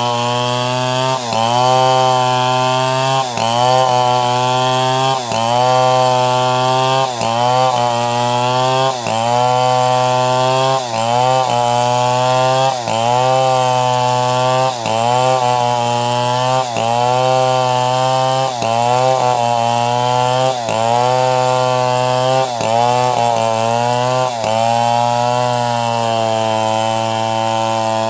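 Chainsaw running under load while sawing timber into boards, its engine pitch dipping and recovering about every two seconds.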